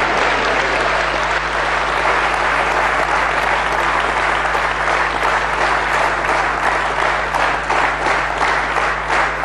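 Studio audience applauding, a dense sustained clapping that thins in the second half so that single claps stand out.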